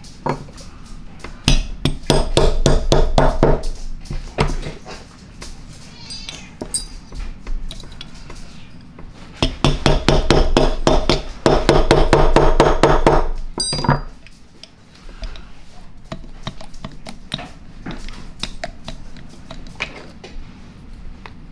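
Two runs of rapid metal-on-metal taps with a ringing tone, starting about a second and a half in and again near the middle: a trigger pin being tapped in and out of the aluminium handle of an air impact wrench. Quieter knocks and handling clatter follow.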